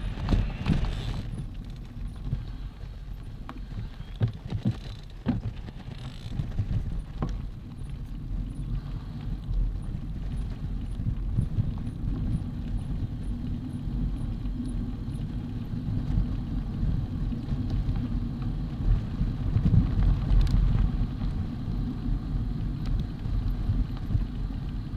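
Mountain bike rolling along a gravel forest track: a steady low rumble of the tyres on loose gravel, with scattered sharp clicks and rattles.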